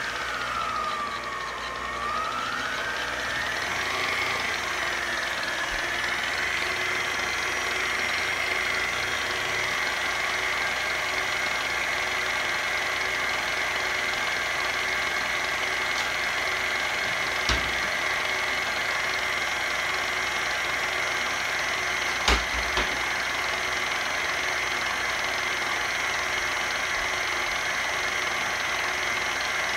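Electric mixer beating cake batter. Its steady motor whine dips in pitch and climbs back during the first few seconds, then holds steady, with two sharp knocks in the second half.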